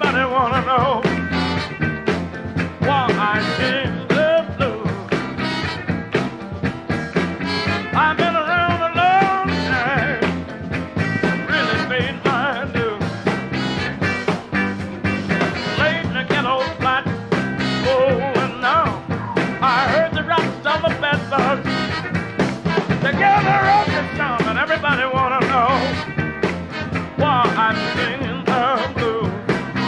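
Background music: an upbeat song with a singing voice over a steady beat.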